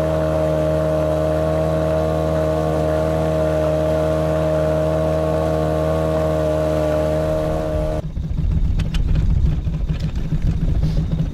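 Small boat outboard motor running at a steady, unchanging pitch under way, labouring against a light chop so the boat makes only about 10 km/h. About eight seconds in the motor sound cuts off abruptly and gives way to a low, gusty rumble of wind on the microphone.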